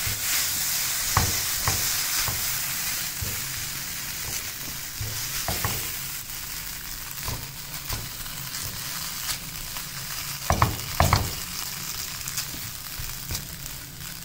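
Shredded chicken with a splash of milk sizzling in a frying pan while a silicone spatula stirs and scrapes it, with light knocks against the pan. Two louder knocks come a little after ten seconds in.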